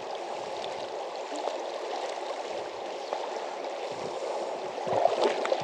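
River water running steadily, an even rushing with slightly more splashy bits near the end.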